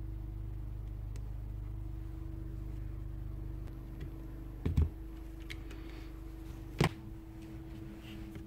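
Clicks and knocks of a screwdriver and small drill parts being handled while connectors are fitted, with two louder knocks about five and seven seconds in. Under it a low steady hum that partly drops away about four seconds in.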